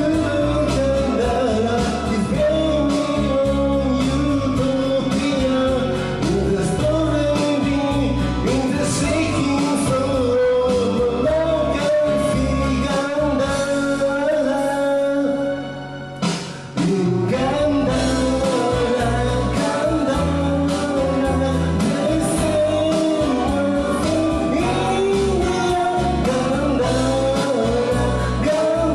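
Pop-rock song with singing over a full band. The music thins out and drops in level for about a second a little past halfway, then comes back in full.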